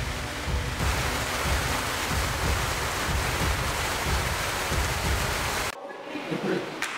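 Steady rain, a dense hiss with a fluctuating low rumble underneath, that cuts off abruptly near the end, leaving a quiet room with a single click.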